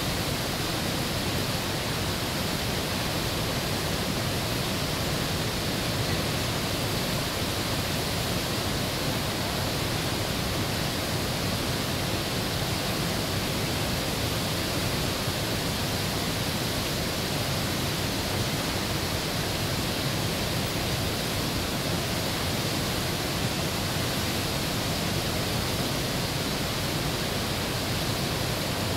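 Whitewater of the Potomac River's Great Falls rushing through the rock channels: a steady, unbroken rush of falling water.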